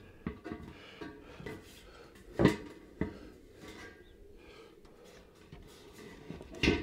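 Irregular knocks and clanks of siding pieces being handled and fitted into place, with the loudest knock about two and a half seconds in and another near the end.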